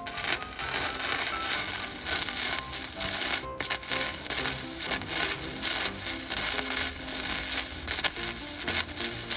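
Arc of a SEIBI EG-MIG100 100 V gasless flux-core semi-automatic welder crackling and sizzling steadily while laying a hole-filling weld, with a brief break in the arc about three and a half seconds in.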